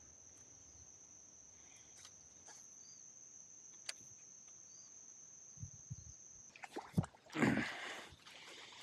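A faint, steady, high-pitched insect trill that stops about two-thirds of the way in. Then louder rustling and a few sharp cracks of brush being pushed through.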